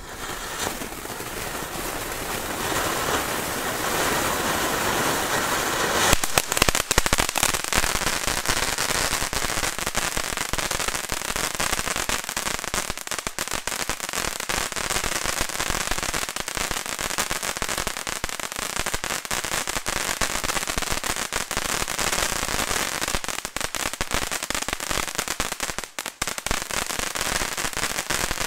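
NICO Feuertonne firework fountain, a three-fountain battery, burning. It starts with a steady spraying hiss, and from about six seconds in breaks into dense, loud crackling that carries on.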